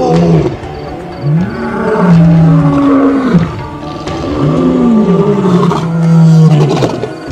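Male lions roaring: long calls that rise, hold and fall. The tail of one call ends just as the sound begins, then come two more of about two seconds each, the second with overlapping voices.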